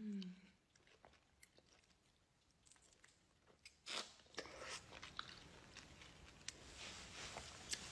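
Near silence with a few faint clicks, then about four seconds in a bite into an unpeeled papaya, skin and all, followed by soft wet chewing with small clicks.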